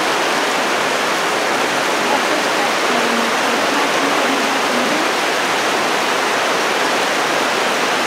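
Fast-flowing mountain river rushing over rocks and rapids: a loud, steady, even roar of water.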